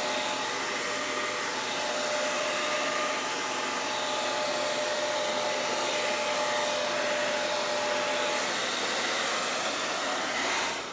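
Handheld blow dryer running steadily, blowing poured acrylic paint across a canvas; a steady rushing with a faint whine, switched off just before the end.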